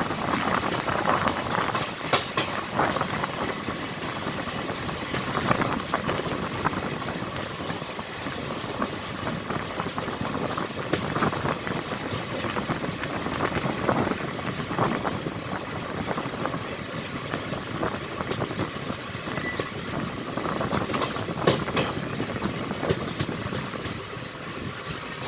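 Express train rolling past, with a steady rumble broken by irregular clanks and clatter from the wheels and couplings.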